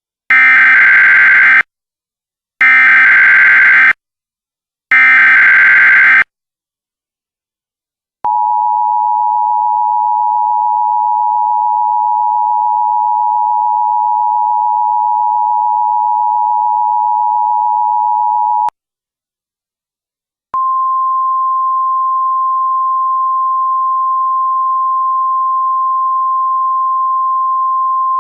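Emergency Alert System tones. First come three short screeching bursts of the digital SAME header, about a second apart. Then the two-tone EAS attention signal sounds steadily for about ten seconds and cuts off. After a brief gap, a single steady tone a little higher in pitch begins: the 1050 Hz weather-radio warning tone.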